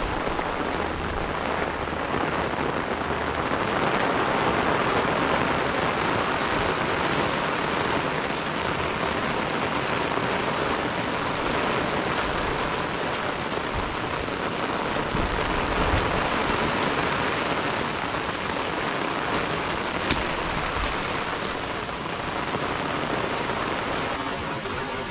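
Heavy rain falling steadily: an even, constant hiss of downpour on the ground and grass.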